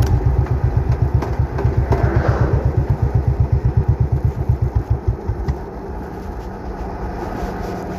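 Royal Enfield Classic 500's single-cylinder engine idling with an even, rapid thump of about nine beats a second, which cuts out about five seconds in, leaving a low steady background noise.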